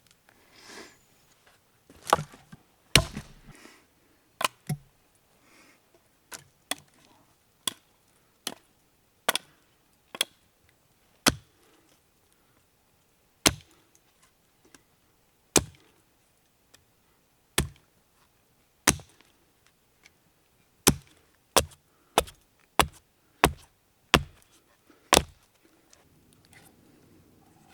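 A blade chopping into wood: a series of about twenty sharp, separate strikes, spaced a second or two apart, then coming quicker, about two a second, for a few seconds near the end.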